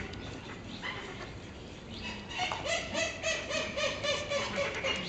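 Cape (African) penguin braying, a donkey-like call of rapid repeated pulses that starts about two seconds in and keeps going to the end, its pitch sinking slightly.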